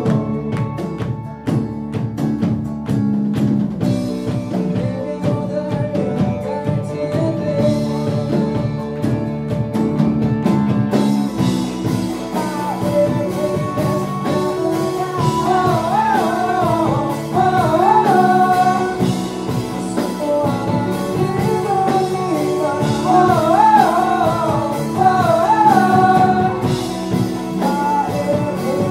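Live rock band playing, with electric bass, guitar and drum kit; the drums open up with cymbals about eleven seconds in, and a sung lead vocal carries the melody over the band.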